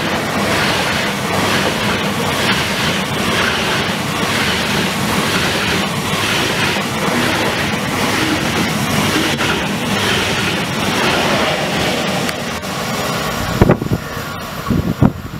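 ICE 3 high-speed electric train passing close by at speed: a loud, steady rush of air and wheel-on-rail noise with faint regular clicks. Near the end it gives way to a few sharp thumps.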